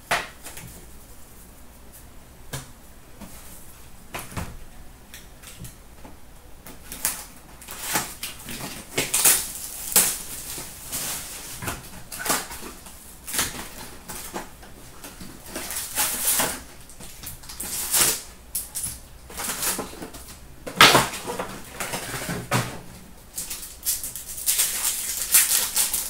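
Trading card packs being torn open and the cards handled: wrappers crinkling and cards sliding and flicking against each other in short, irregular rustles, sparse at first and then frequent.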